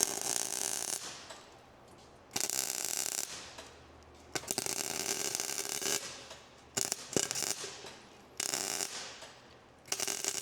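Arc welder crackling in about six short bursts, each around a second long with brief pauses between, welding a cracked, flexing hinge point on a truck's side gate.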